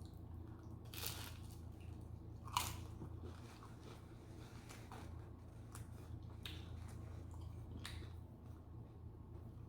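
Close-up eating sounds: crunchy bites and chewing of crusty sourdough bread, with a few scattered crunches, the sharpest about two and a half seconds in.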